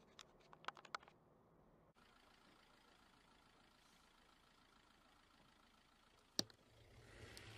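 Near silence: faint vehicle noise, with a few sharp clicks in the first second and one sharp click about six seconds in. A low hum and noise swell up near the end.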